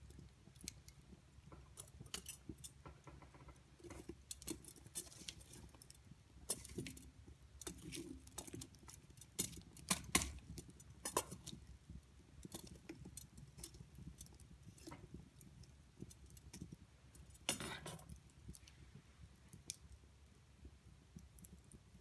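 Firewood burning in an open hearth, crackling with irregular small pops and snaps, with a few louder cracks about halfway through and again about four seconds before the end.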